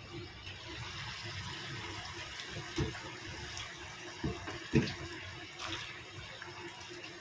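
Potatoes deep-frying in hot oil: a steady bubbling sizzle, with a few dull knocks near the middle.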